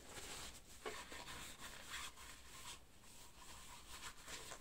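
Faint, intermittent rustling and rubbing of a paper tissue wiping resin residue out of a plastic funnel with a little alcohol.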